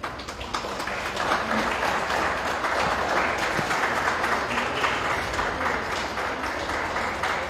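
Audience applauding. The clapping starts suddenly, swells over the first second, and keeps going.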